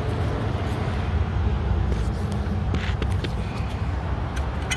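Steady low rumble of background noise, with a few light metallic clicks about three seconds in as a screw-type brake caliper piston compressor tool is set against the caliper.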